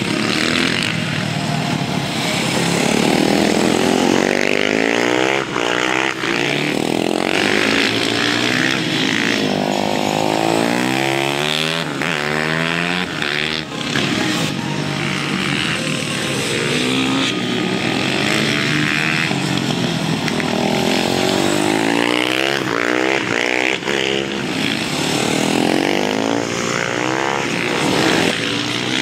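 Supermoto motorcycle engines passing on a track, several bikes overlapping, their pitch rising and falling over and over as they accelerate and back off.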